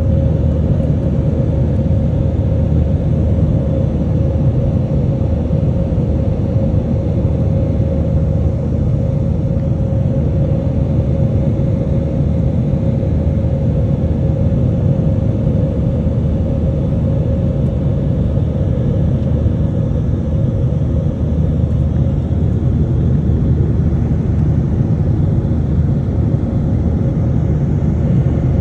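Steady low rumble of a jet airliner's engines and rushing air heard inside the passenger cabin during the climb after takeoff, with a steady hum running through it.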